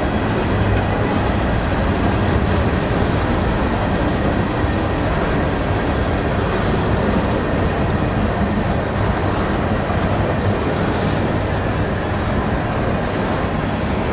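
Empty covered hopper cars of a grain train rolling past, steel wheels running steadily on the rails; the last car goes by near the end.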